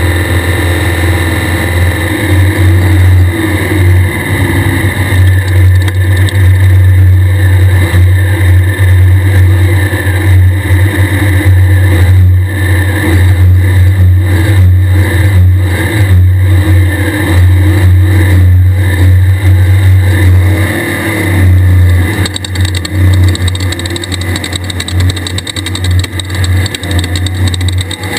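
Loud air-cooled VW 1600 flat-four engine of a Class 1/2-1600 desert race buggy running hard under load, with a heavy steady low hum. The loudness drops back about three quarters of the way through.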